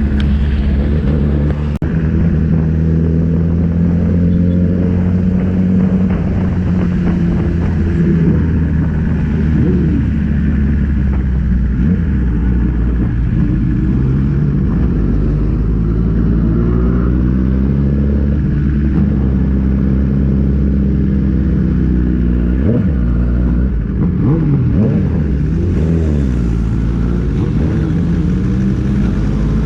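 Kawasaki ZX-10R's inline-four engine running under way, heard from on board the motorcycle. Its pitch holds fairly steady at first, then rises and falls repeatedly in the second half as the throttle and gears change, over a steady rush of wind and road noise.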